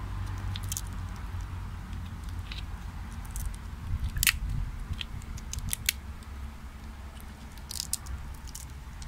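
Walnut shell being broken apart and picked at by hand: scattered sharp cracks and crunches of shell, the loudest about four seconds in, over a steady low rumble.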